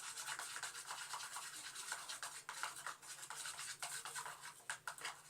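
Quick, continuous scraping strokes of a utensil stirring a glue-based slime mixture in a container.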